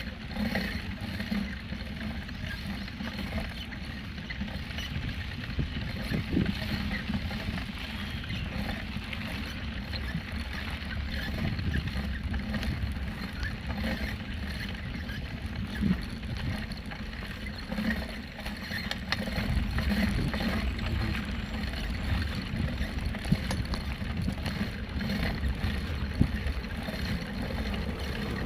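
Bicycle riding over a rough, bumpy dirt road, heard from a phone in a handlebar mount: a steady low rumble of wind and tyre noise with many small knocks and rattles from the jolting.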